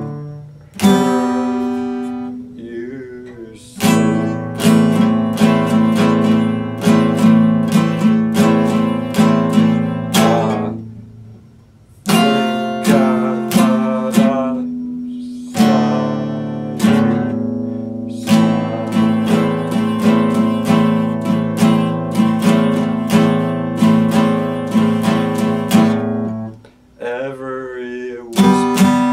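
Epiphone acoustic guitar strummed in a steady rhythm, full chords ringing. Twice the strumming stops briefly and the chords die away before it picks up again.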